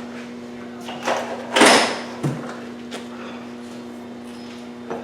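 Metal parts being handled at a lathe during setup: a knock, then a short, loud scraping clatter about one and a half seconds in, and another knock just after. A steady machine hum runs underneath.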